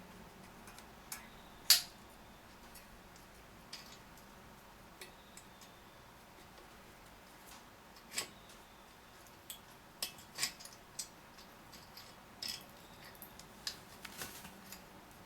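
Scattered light clicks and taps of small metal parts and hand tools being handled while a Honda FG201 tiller's carburetor is taken apart for cleaning, with one sharper click about two seconds in and a quicker run of clicks in the second half.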